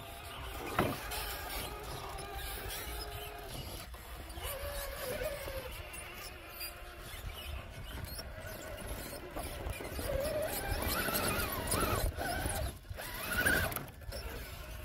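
Electric motor and geartrain of an Axial SCX6 RC rock crawler whining as it climbs rock. The pitch rises and falls with the throttle, and there is a sharp knock about a second in.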